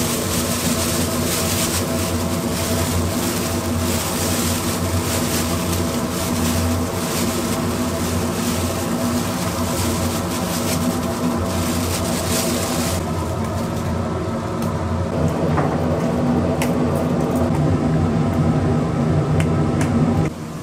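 A machine running steadily with a low hum, under a hiss that falls away about thirteen seconds in.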